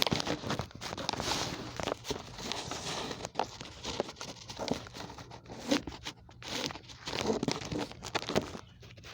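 Loud rustling and crackling close to the microphone, thick with small clicks and knocks, starting suddenly and stopping near the end.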